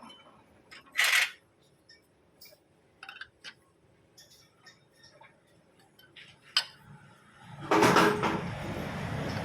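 Scattered metallic clinks and knocks of steel parts and tools being handled, with a short noisy burst about a second in. A louder rushing noise starts near the end and carries on.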